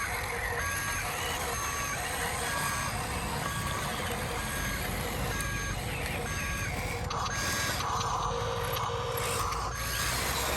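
Toy RC truck's sound module playing electronic reversing beeps, short tones repeating at an even pace, over the steady whirr of small electric motors and gears. From about seven seconds in a louder, rougher mechanical noise joins in.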